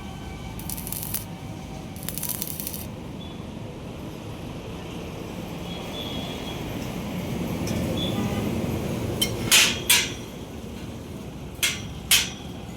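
Arc welding crackling and hissing in short bursts, a few quick welds, the later ones louder and sharper, over a steady low workshop background.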